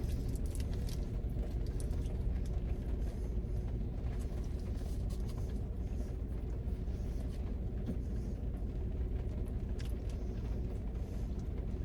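Steady low rumble inside a parked car, with faint scattered light ticks over it.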